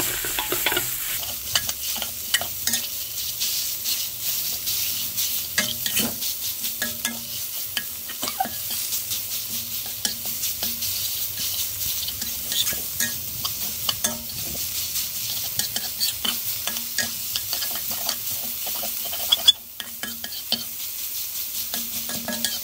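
Ground pork frying and sizzling in oil in a steel wok as a metal spatula stirs and scrapes it, with frequent small clicks of the spatula on the pan. One sharper knock comes near the end.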